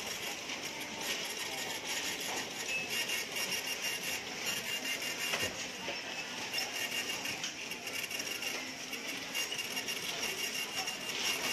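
Steady background noise of a busy shop, with a faint, broken high tone and a single small click about halfway through.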